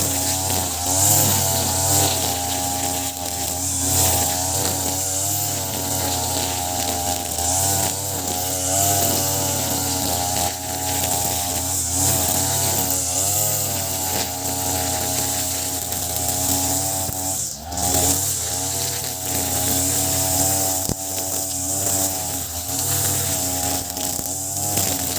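Ogawa BG330 33cc two-stroke brush cutter running at high revs, spinning 2.2 mm round nylon trimmer line through grass. The engine pitch wavers up and down under load, with one brief dip in revs about three-quarters of the way through.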